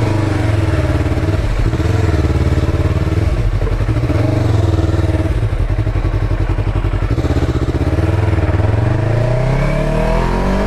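Motorcycle engine and exhaust running under way, the pitch wavering with the throttle, then rising as the bike accelerates near the end.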